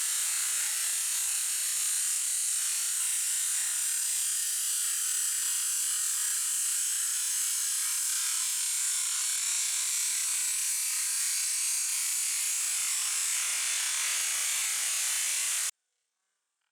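High-pressure washer jet spraying: a steady high-pitched hiss that stops abruptly near the end.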